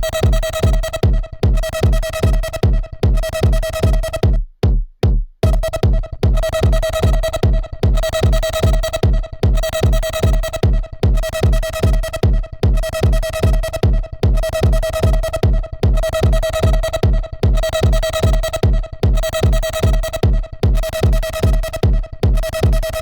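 Techno loop from a drum machine and synth playing back: a steady, evenly spaced kick drum under a pulsing, repeating synth tone and percussion. The playback cuts out briefly about five seconds in, then starts again.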